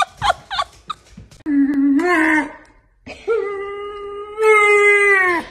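German Shepherd puppy howling: a short howl that steps up in pitch, then a long steady howl of about two seconds that drops in pitch as it ends.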